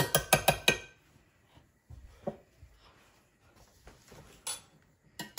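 A metal fork beating egg in a glass baking dish: a quick run of clicks against the glass for under a second, then a few light knocks of utensils being set down on the counter.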